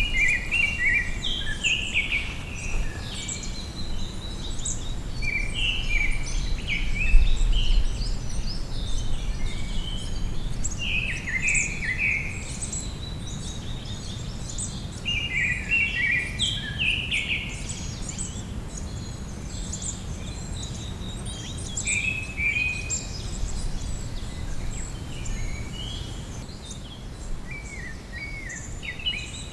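Songbirds singing in spring woodland: one bird repeats a short, stepping-down phrase every few seconds, and other birds add higher chirps. Under the birdsong there is a steady low rumble.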